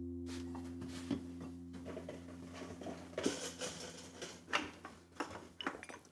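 A sustained plucked-string chord of the film score fades out. Then come light clinks and knocks of dishes and cutlery, growing more frequent after the first few seconds.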